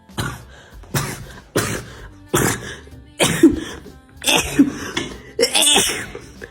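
A person coughing in a rapid fit of about eight sharp, explosive coughs, less than a second apart, as a reflex to a nasal swab test.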